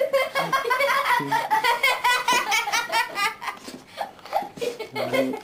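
A person laughing hard in quick repeated bursts, easing briefly near the end.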